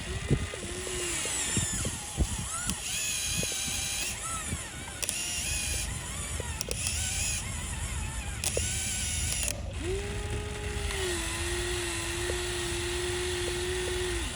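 Small electric motors of a radio-controlled model excavator whining, their pitch stepping and gliding as the machine works, with a steadier whine from about two-thirds of the way through. There are scattered clicks and knocks throughout.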